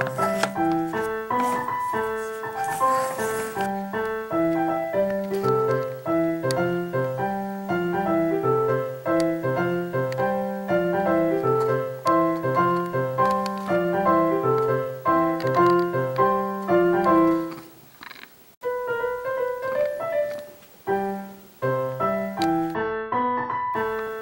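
Piano music made of quick, short notes over a low bass line. It breaks off for about a second about three quarters of the way through, then starts again.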